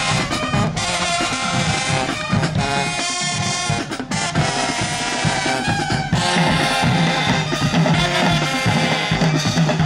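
A high school marching band plays loudly: brass holds sustained notes over a low sousaphone bass line, with drums striking a steady beat.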